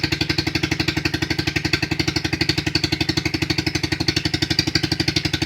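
200cc single-cylinder ATV engine idling on a quarter choke just after a cold start, with an even, rapid beat of firing pulses.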